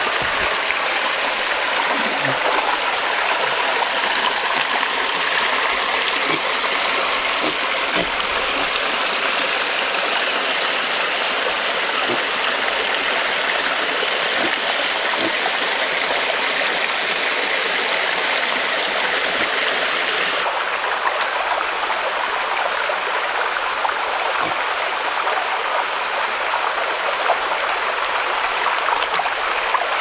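A small waterfall and a rocky stream running, a steady rush and trickle of water.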